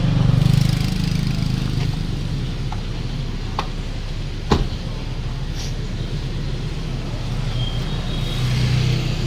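Steady low hum of a vehicle engine running, with a single sharp slam about halfway through as the rear hatch of a Toyota Previa van is pushed shut.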